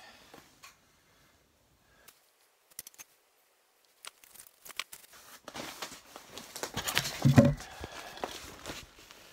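A few faint clicks, then rustling and knocking as the camera is picked up and moved about, loudest with a thump about seven seconds in.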